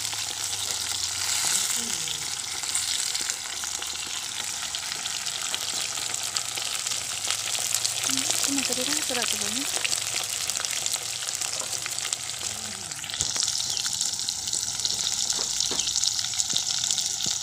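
Fish steaks frying in hot oil in a wok: a steady crackling sizzle of bubbling oil.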